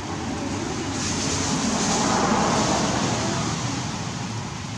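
A passing vehicle's noise swells to a peak about two seconds in and fades away, over a steady hiss of rain.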